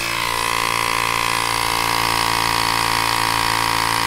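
Battery-powered Roubaix AP03 portable tire inflator running with no tire attached: its small electric compressor motor gives a loud, steady, even hum with a high whine.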